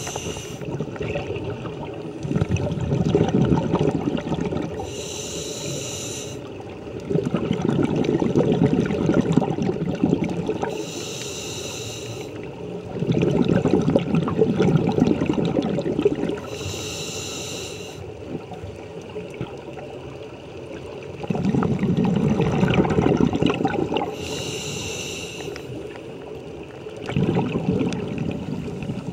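Scuba diver breathing through a demand regulator underwater: a short hissing inhale of a second or so, then a few seconds of bubbling as the exhaled air rushes out of the regulator, about four breaths at roughly six-second intervals.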